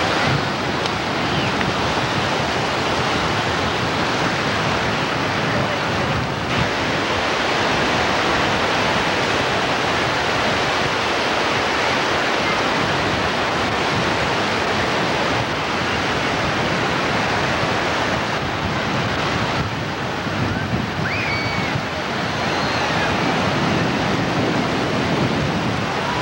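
Ocean surf breaking and washing through the shallows: a steady rush of water noise.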